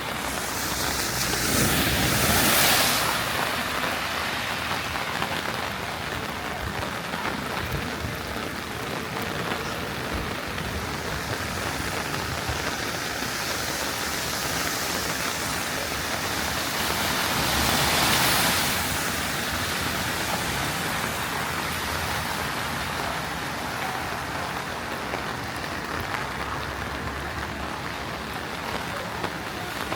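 Heavy rain falling steadily on the street and pavement, with a louder rushing swell twice, once near the start and once a little past the middle.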